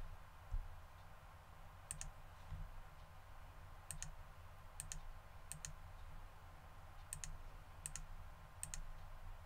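Computer mouse clicking, about seven faint, sharp clicks, some in quick press-and-release pairs, as faces are shift-clicked into a selection. They sit over a low steady hum, with a soft low thump about half a second in.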